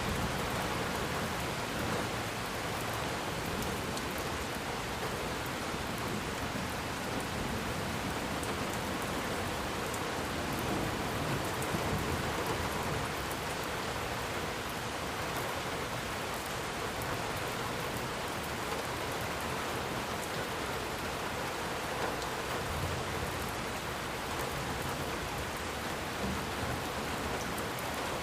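Rain falling steadily on a surface, an even wash of noise with faint scattered drop ticks.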